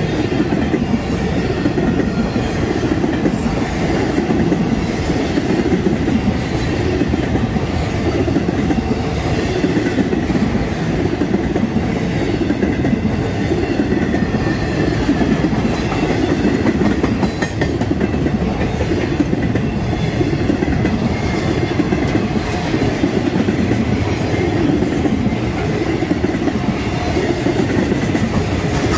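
Freight train of empty intermodal well cars rolling past at speed: a steady rumble of steel wheels on the rails, with clickety-clack.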